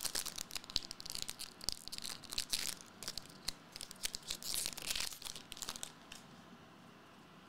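Foil wrapper of a trading card pack being torn open and crinkled: a run of short, crisp crackles that dies down about six seconds in.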